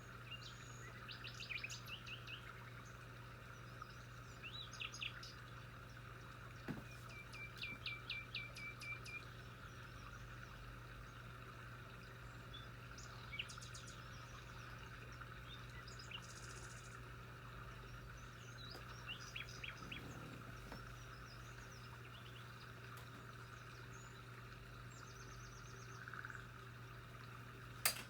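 Small birds chirping and calling, several quick series of short high notes with pauses between them, over a steady low hum. A single sharp click comes at the very end.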